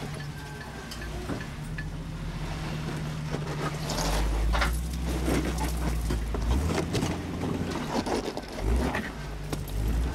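Jeep CJ Renegade's engine running under load as it crawls up a rock ledge, getting louder about four seconds in. Scattered knocks and scrapes of tires and chassis on rock run through it.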